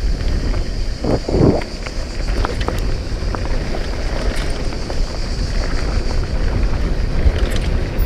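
Heavy wind buffeting on the camera microphone as a downhill mountain bike rides fast over a dirt trail, with steady tyre noise and scattered knocks and rattles from the bike. There is a brief louder burst about a second in.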